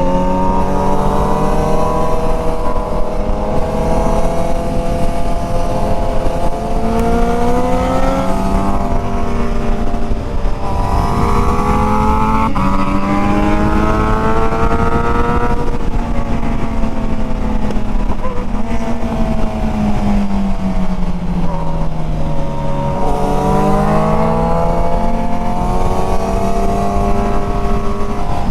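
Sport motorcycle engine heard from on board under way: the revs climb and step down as it shifts up through the gears, jump again about ten seconds in, wind down off the throttle, then climb again near the end. Steady wind rush runs underneath.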